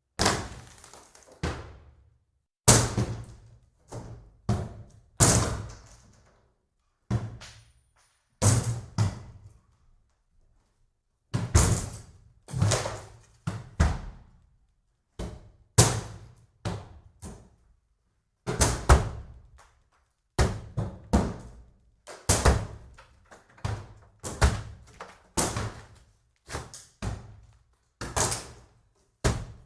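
Axe blows striking the wooden boards of a cabin, heavy irregular chops about one a second, each with a short splintering, rattling decay, and a brief pause about a third of the way through.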